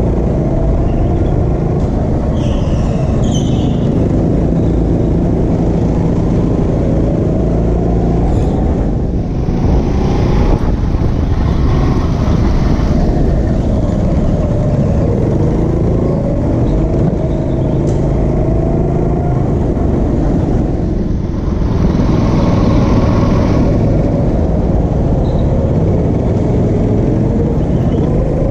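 Onboard sound of an indoor go-kart being driven round the track, its motor's pitch rising and falling with speed through the corners, over a heavy low rumble.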